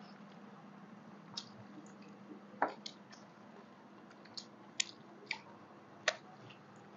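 Quiet eating sounds of people eating rice by hand: scattered wet smacks and clicks from chewing mouths and squished rice, about seven in all, over a faint steady hum.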